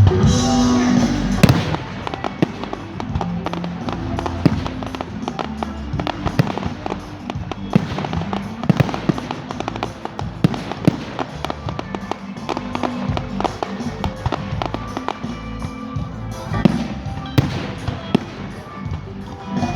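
Fireworks bursting: a string of bangs and crackles throughout, loudest about a second in and again near the end, with music playing underneath.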